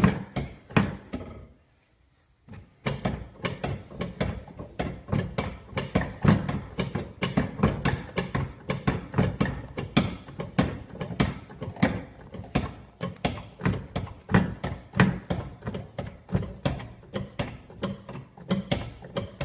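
Shop press being pumped by hand to press a hub motor's side cover down onto the motor, giving a steady run of clicks and knocks from the pump handle and press, several a second. There is a short pause about two seconds in.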